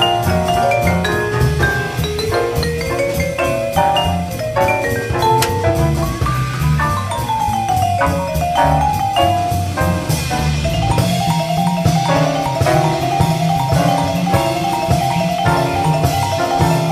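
Live jazz: a Musser vibraphone played with mallets in quick runs of notes that rise and fall, then rapid repeated figures, over drum kit and piano accompaniment. The cymbals get busier about two-thirds of the way through.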